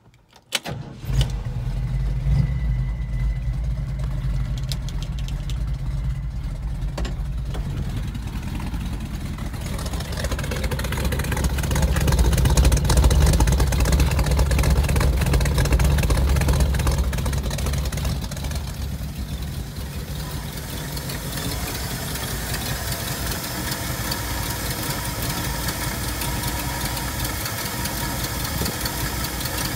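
1968 Ford F100's 360 cubic-inch V8 cold-starting on a little choke, catching about a second in and then idling steadily. It is louder for several seconds in the middle.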